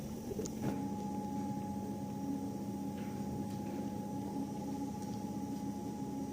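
A small electric motor running with a steady, unchanging hum.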